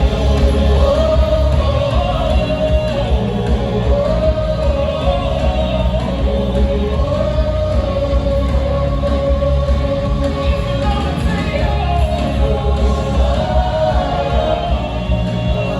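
Live worship music: singing with a loud band, the low end heavy and dense throughout.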